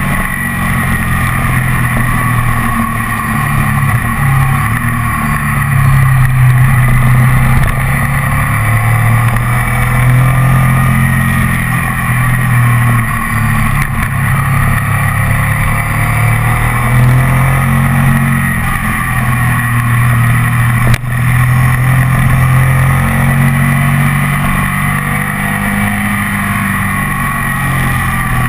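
Ducati ST4S's 996 cc 90-degree V-twin engine under way on the road, heard from the handlebars. Its pitch rises and falls repeatedly as the rider works the throttle.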